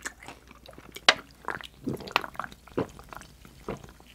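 A person gulping a soft drink from a can close to the microphone: a run of wet swallowing gulps, roughly one every half second.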